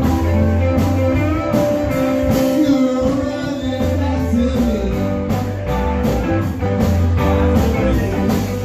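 Live band playing amplified electric guitars with drums keeping a steady beat.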